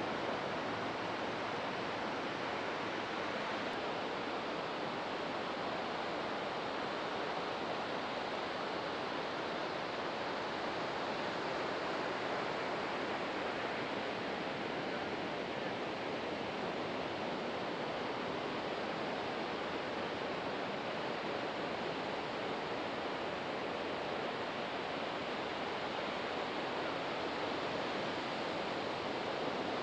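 Ocean surf breaking on a beach, a steady, even wash with no single wave standing out.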